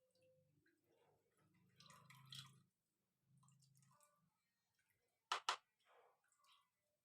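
Faint dripping of blended kencur juice, with two sharp clicks close together about five seconds in.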